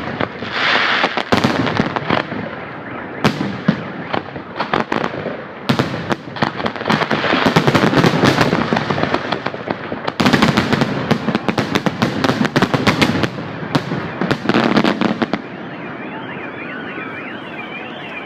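Fireworks display: a rapid barrage of bangs and crackling, densest in the middle, that stops about fifteen seconds in. Then a steady warbling siren-like tone begins near the end.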